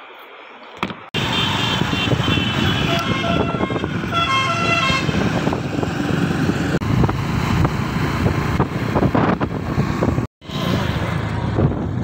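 Wind rush and road and engine noise heard while riding pillion on a moving motorcycle or scooter, with a vehicle horn honking a few times about 2 to 5 seconds in.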